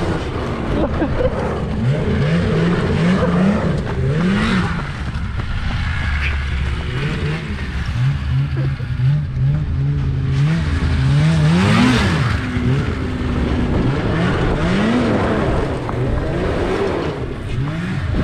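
A vehicle engine revving up and down over and over, its pitch climbing and falling every second or two, with a short steadier stretch about halfway through.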